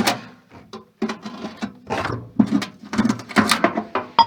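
Irregular clicking and knocking of metal parts being handled and worked loose while a rusty microwave is stripped apart.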